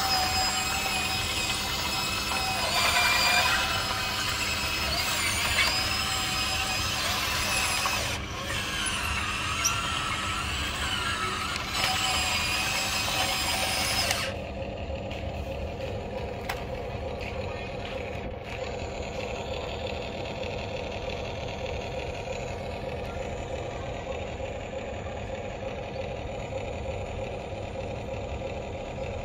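Huina RC excavator's electric motors whining as it moves, the whine rising and falling in pitch. About halfway through the sound drops abruptly to a quieter steady hum with a fast regular pulse.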